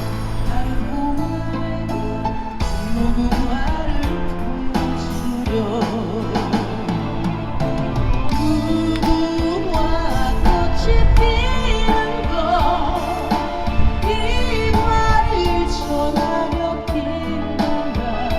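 A woman singing live over a backing track, holding notes with vibrato.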